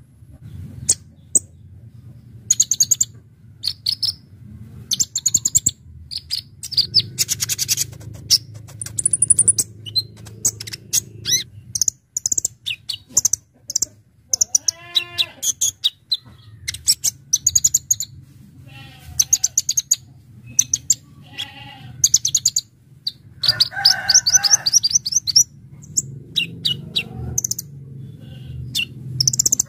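Kolibri ninja (Konin) sunbird singing: bursts of rapid, sharp, high-pitched chirps and fast trills, one after another with short gaps. A steady low hum runs underneath. A lower, falling call from another bird cuts in about halfway through, and another lower call comes about two thirds of the way in.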